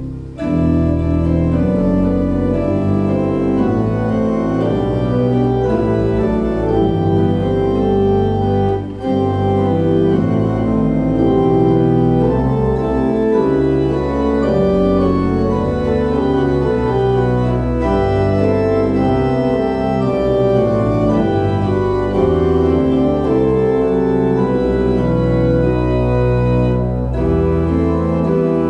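Residence pipe organ playing a piece in sustained chords over low held bass notes. It breaks off briefly just after the start and again about nine seconds in.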